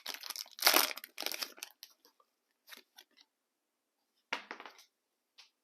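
Foil booster pack wrapper crinkling and tearing as a Pokémon card pack is ripped open. The crackling is dense in the first two seconds, then comes in a few short rustles.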